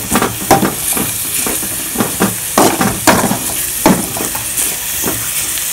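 A metal spoon stirring and scraping grated carrot and chopped vegetables around a blackened wok, in irregular strokes over a steady sizzle of oil on a low flame: the carrot is being sautéed until it loses its raw smell.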